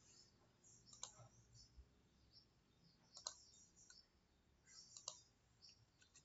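Faint computer mouse clicks: a few short, sharp clicks a couple of seconds apart, with lighter ticks between them.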